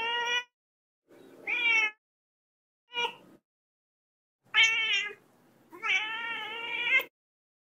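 Young tabby kitten meowing: five high-pitched meows with short gaps between them, the last one drawn out for over a second.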